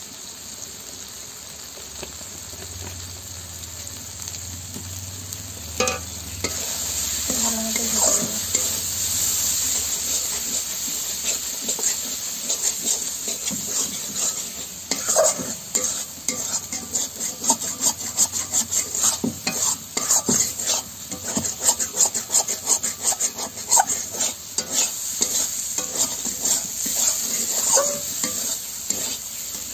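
Onion, ginger-garlic and spice masala sizzling in oil in a black kadai while a spatula stirs and scrapes it against the pan. The sizzle grows louder a few seconds in, and from about twelve seconds in the scraping strokes come quick and repeated. This is the masala being fried down with its spices before the chicken goes in.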